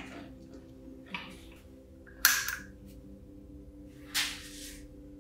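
Short clicks and clatters of hands working clips and a bench power supply on an electrolysis rust-removal bath. The loudest is a sharp click about two seconds in, followed by a brief rustle about four seconds in, over a steady low hum.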